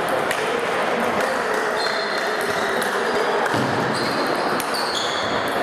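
Table tennis balls clicking sharply and irregularly off bats and tables from several games at once, over a steady din of voices and movement in a large sports hall.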